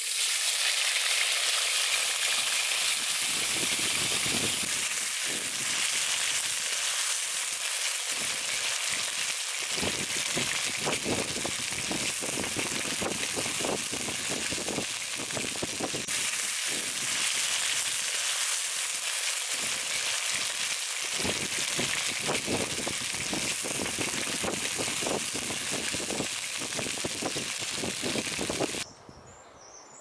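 Cubed potatoes sizzling in hot vegetable oil in a large black pan, loudest as they are tipped in, then frying steadily while a wooden spatula stirs and scrapes them with many short knocks. The sizzle cuts off shortly before the end.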